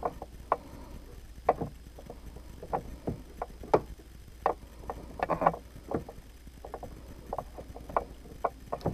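Hands handling thread and fabric at a sewing machine's needle and presser foot, making scattered irregular clicks and small taps.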